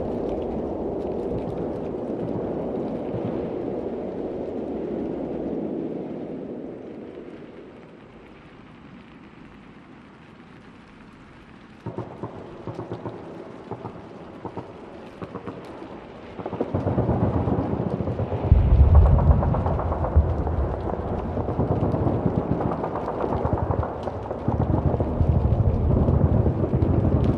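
Battlefield ambience of distant explosions: a low rumble fades away, a crackling noise starts suddenly about twelve seconds in, and heavy rumbling booms set in from about sixteen seconds, loudest around eighteen to twenty seconds.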